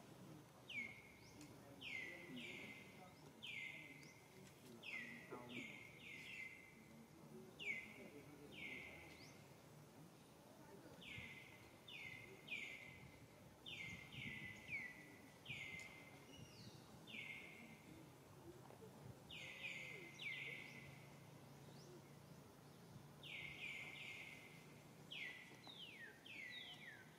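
A bird chirping: short calls that each fall in pitch, repeated in quick clusters of two or three.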